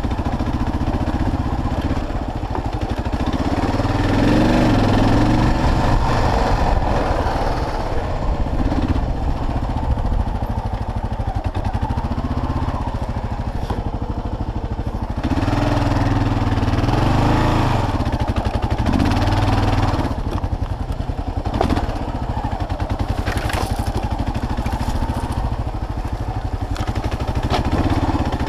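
Kawasaki KLR650 single-cylinder engine running at low speed on rough trail. It pulls harder twice, about four seconds in and again from about fifteen to twenty seconds, then eases off. A few sharp knocks come from the bike over rocks about two-thirds of the way through.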